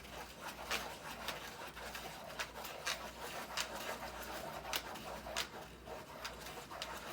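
Continuous scratchy rustling of paper being worked by hand, with frequent short clicks and taps.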